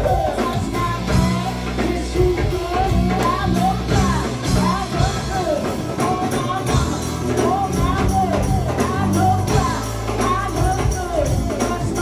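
Live go-go band playing, with a held bass line that moves from note to note and voices singing over it.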